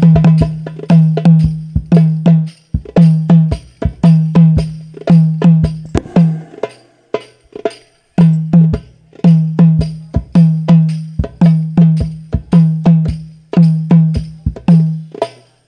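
A hadroh ensemble of rebana frame drums playing a steady rhythmic pattern during a sound check: sharp slapped strokes mixed with deep ringing low drum notes. The low notes drop out briefly a little before halfway.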